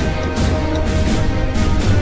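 Background music with a strong bass and a regular beat.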